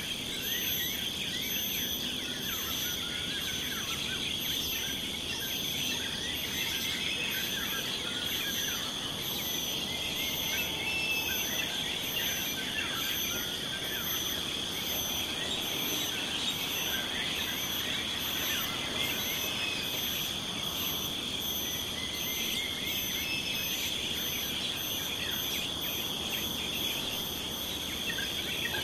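Outdoor ambience of insects and birds: a steady insect drone, a high insect chirp pulsing about once a second, and many small bird chirps scattered over it.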